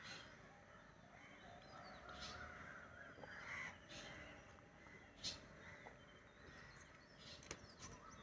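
Near silence with faint crow caws, a few of them about two to four seconds in, and a faint click about five seconds in.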